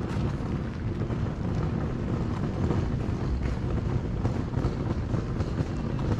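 Steady wind rumble buffeting the microphone, with faint footsteps on icy ground now and then.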